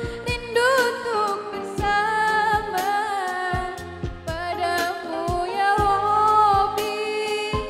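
Woman singing a melodic, ornamented song into a microphone, her held notes wavering, over musical accompaniment with deep drum hits.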